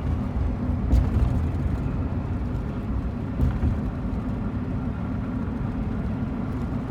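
Road noise inside a moving car: a steady low rumble from the tyres and engine, with two brief knocks, one about a second in and one near the middle.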